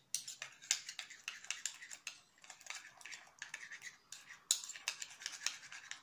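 Plastic spoon stirring and scraping a thick yogurt-and-yeast face-mask paste in a small bowl: a run of quick, irregular clicks and scrapes.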